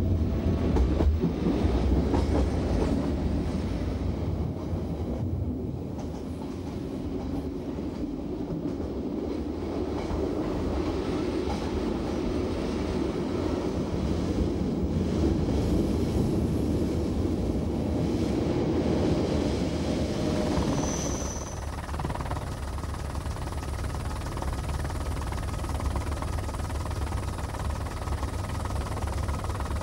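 Metre-gauge Montreux–Oberland Bernois electric train running along the track: a steady running noise of wheels on rail, with a brief high squeal a little over two-thirds of the way through.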